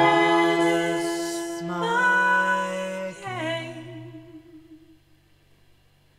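Voices, a woman's among them, sing a slow harmony in long held notes. About three seconds in the chord moves lower, and it fades away around five seconds, leaving near silence.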